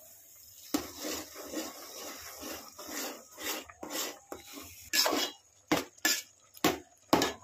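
Rolled oats being stirred into a steel pot of simmering vegetables and water with a metal spatula, which scrapes against the pot in a run of strokes. The last few strokes are louder and separate, about two a second.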